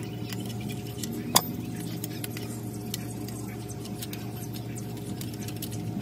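A metal hand tool working the fasteners on the rear cover of a car alternator being taken apart: light metallic ticks and clinks, with one sharp click about a second and a half in, over a steady low hum.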